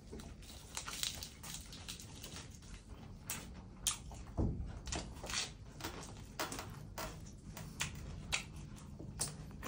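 Close-up eating sounds: a person chewing a lettuce-wrapped mouthful of spicy raw-shrimp salad, with irregular wet smacks and crisp crunches, and a soft low thump about four and a half seconds in.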